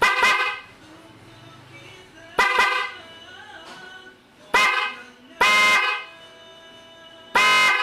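FER Germany aftermarket electric horn on a Yamaha NMAX scooter sounding in a series of loud blasts a couple of seconds apart: short double toots at first, then longer single blasts near the end.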